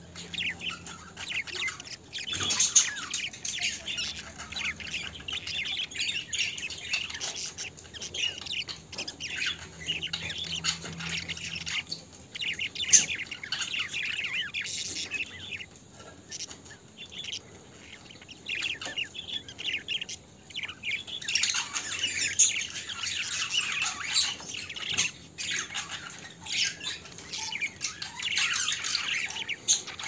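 A group of budgerigars chattering: continuous warbling and chirping with sharp squawks mixed in, thinning out for a few seconds in the middle before picking up again.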